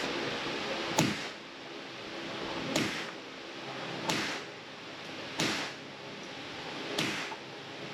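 Gunshots on an indoor firing range: a string of single shots, about one every second and a half, each with a short echo.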